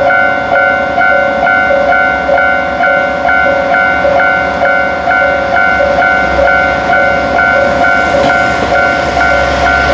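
Japanese level crossing warning bell ringing steadily, about two strikes a second. From about six seconds in, the low rumble of a KiHa 40 series diesel railcar grows beneath it as the railcar pulls away and passes close by.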